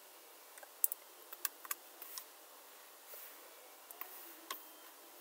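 Faint, irregular clicks from a computer keyboard and mouse, about a dozen, bunched around one to two seconds in with a few more near the end.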